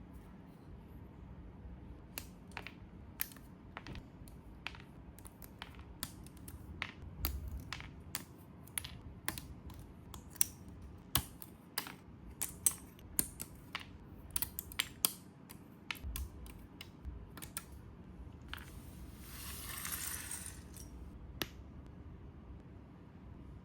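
Irregular sharp plastic clicks and snaps from handling the parts of a BLOKEES snap-fit plastic model kit, some louder than others, with a rustle lasting about two seconds near the end.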